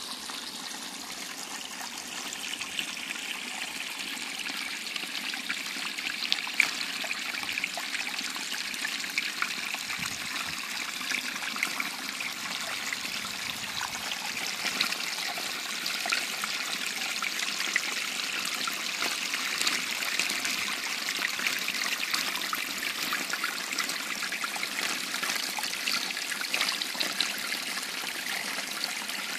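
Small shallow woodland stream trickling over mud and roots and spilling down a low step: a steady watery hiss with many tiny splashes.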